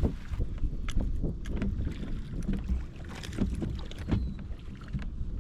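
Wind rumbling on the microphone aboard a small fishing boat, with scattered light clicks and knocks from the boat and tackle.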